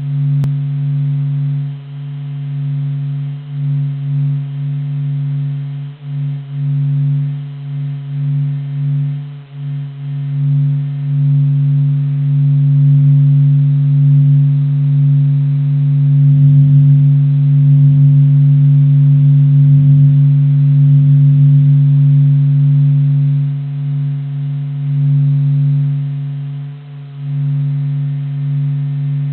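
The Sun's vibrations, recorded by NASA and converted into sound: a steady low hum with a fainter higher tone above it, its loudness wavering and swelling, loudest about halfway through.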